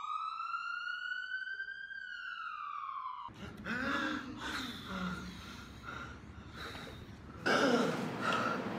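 A single siren-like electronic tone that rises slowly for about two seconds, falls, and cuts off suddenly about three seconds in. It is followed by faint voices and breathing.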